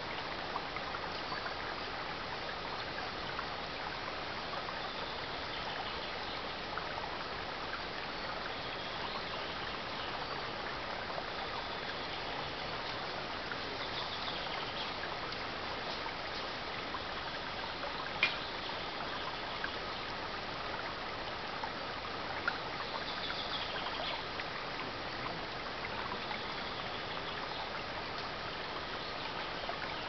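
Shallow mountain stream trickling and babbling steadily over stones, with a sharp click a little past halfway and a couple of fainter ones.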